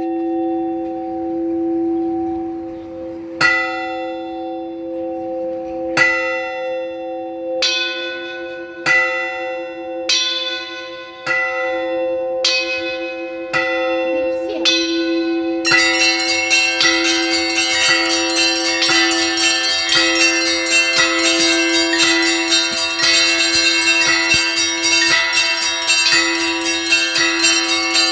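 Russian Orthodox cathedral bells ringing. A large bell hums on while single strokes come gradually faster, about every two and a half seconds at first and then about once a second. About halfway through, the smaller bells break in with a dense, rapid full peal (trezvon) over the big bell.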